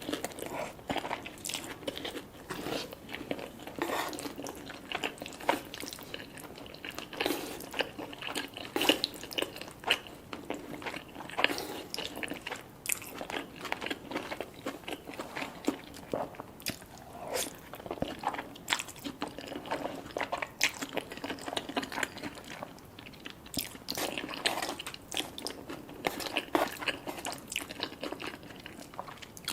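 Close-miked eating: biting, crunching and chewing of food in irregular, frequent small crackles and clicks.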